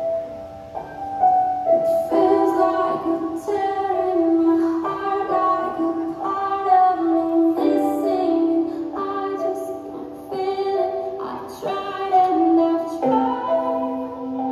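Background music: a pop song with a woman singing over a keyboard accompaniment. Held keyboard tones open it, and the voice comes in about two seconds in.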